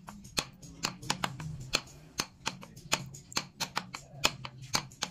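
Wooden mallet tapping a carving chisel into a wooden board: a quick run of light, sharp taps, about three a second, as the chisel cuts the pattern.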